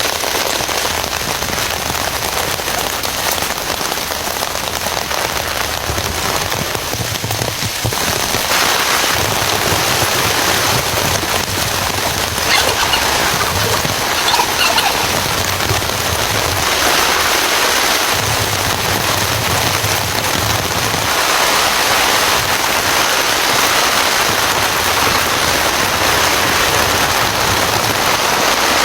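Heavy rain falling steadily, growing a little louder about eight seconds in.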